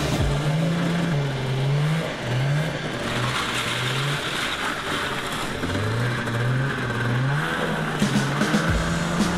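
Yamaha Enticer 300 two-stroke snowmobile engine running and revving as the sled is ridden, louder as it passes close about three seconds in. Background music with a bass line plays over it.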